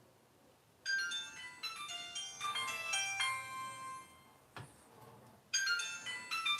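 Nokia mobile phone playing a ringtone melody of bright electronic notes. The melody starts about a second in, breaks off with a click in the pause, and starts again near the end.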